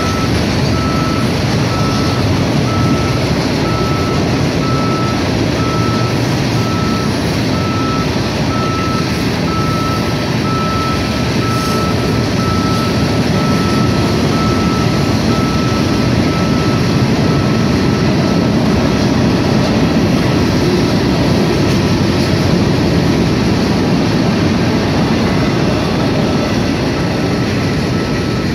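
Florida East Coast Railway freight train's cars rolling past, a steady rumble and rattle. An electronic beep repeats steadily throughout.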